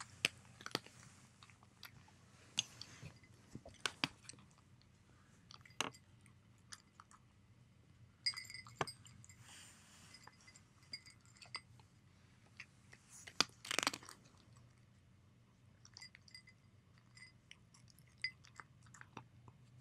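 A cat crunching dry kibble: irregular crunches and chewing, with a louder cluster of crunching about two-thirds of the way through.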